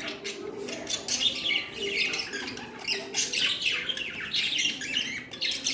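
Several budgerigars chirping and chattering: a dense, continuous run of short, quick calls.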